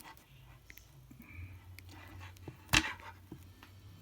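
Klein Tools 11053 wire stripper cutting through 10-gauge copper wire: small handling clicks, then one sharp snap about two-thirds of the way in as the jaws close through the wire, a cut that took some effort.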